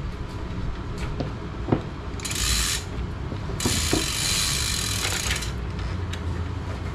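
Bicycle freewheel ratcheting in two spells, a short one and then one of nearly two seconds, as the crank is turned backward while a pedal is tightened. There are a few light clicks of the wrench on the pedal before that.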